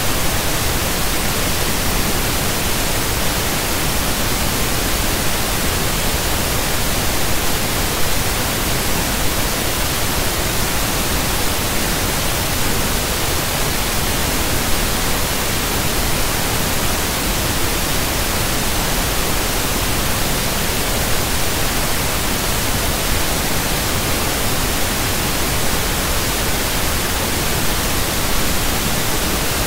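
Loud, steady static hiss, even from low to high pitch and unchanging throughout, with no speech or other sound.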